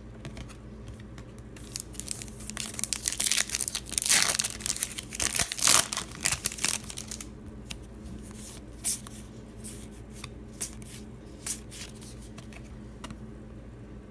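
A trading card pack's wrapper being torn open and crinkled for several seconds, followed by a few scattered light crackles and flicks as it is handled.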